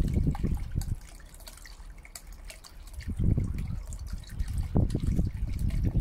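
Small submersible fountain pump pushing a jet of water up in a tub, splashing and bubbling back into the water. The churning comes in uneven surges, weaker for a couple of seconds after the first second.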